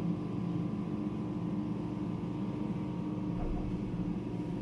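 Steady hum and light hiss of neonatal high-flow oxygen equipment running, with several fixed tones and no change.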